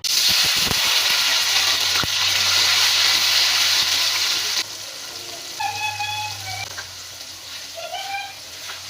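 A loud, steady hiss of the kind heard when cooking, which cuts to a quieter hiss about four and a half seconds in. A few short whistling chirps sound over the quieter part.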